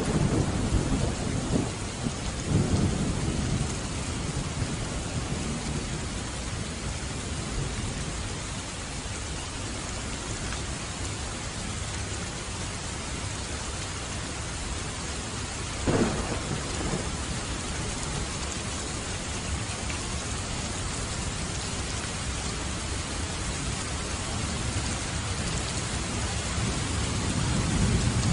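Steady heavy rain in a thunderstorm, with rumbles of thunder rolling in the first few seconds, a single sharp thunderclap about halfway through, and thunder building again near the end.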